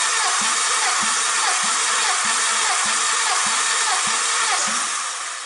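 Starter motor cranking a VW 1.8-litre 20-valve turbo petrol engine (AWT) without it firing, for a compression test of cylinder two. The cranking has a regular pulse a little under twice a second and dies away near the end.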